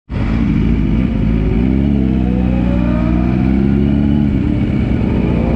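Motorcycle engine heard close up from an onboard mount, pulling away at low speed: its pitch climbs slowly for a few seconds, levels off, then starts to rise again near the end.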